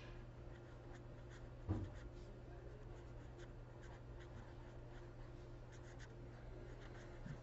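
Marker pen writing on paper: faint, scattered scratching strokes as words are written, over a steady low electrical hum. A brief soft low thud comes a little under two seconds in.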